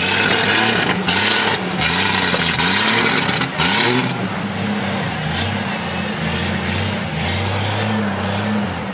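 Engine of a heavily modified Jeep Wrangler off-roader revving up and down in short repeated bursts as it crawls over a steep muddy slope. The running is louder and rougher for the first four seconds or so, then steadier.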